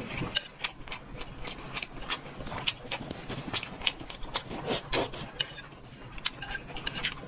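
A person eating close to the microphone: chewing and wet mouth clicks, irregular, a few sharp clicks a second.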